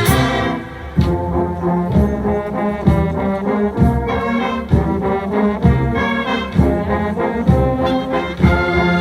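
A large brass band of trumpets, trombones and low brass playing a slow hymn together, with a steady low beat about once a second.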